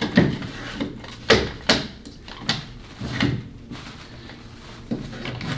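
Irregular knocks and rattles of a marionette's body, legs and wire rod being handled while the bent leg rod is fitted through the pelvis.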